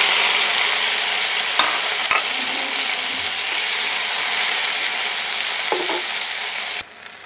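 Eggplant pieces sizzling in hot oil in a frying pan, turned with a spatula, with a couple of light spatula taps about two seconds in. The sizzling cuts off sharply near the end.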